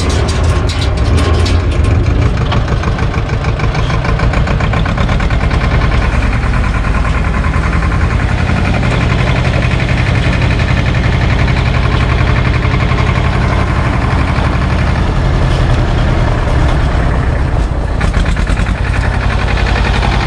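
SAME tractor's diesel engine running steadily as it tows a trailer, with a brief dip in level near the end.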